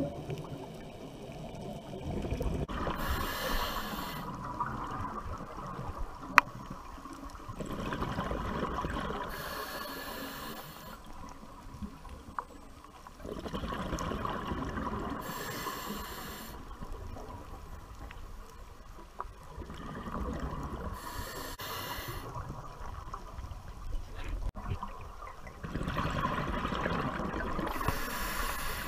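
Scuba diver breathing through a regulator underwater: a burst of bubbling and hissing about every six seconds, five breaths in all, with a low steady rumble between. One sharp click about six seconds in.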